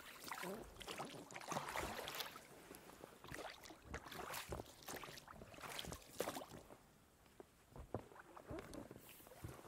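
Inflatable boat being rowed across calm water: oar blades dipping and splashing at an uneven pace, with occasional knocks from the oars and boat.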